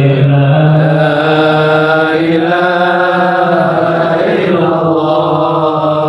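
Arabic devotional chanting of shalawat, praise to the Prophet, sung as long held notes that bend slowly in pitch.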